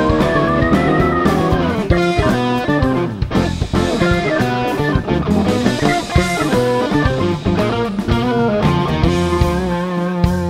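A live band plays: electric guitar lead lines over electric bass and a drum kit. A Hammond organ holds a sustained chord near the end.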